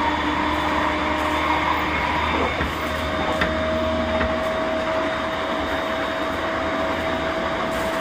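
Onboard running sound of a refurbished JR East E231 series 1000 electric train: steady electrical whine from the traction equipment over rail and car noise. One pair of whining tones fades out about two seconds in, and a new, higher steady tone comes in near three seconds.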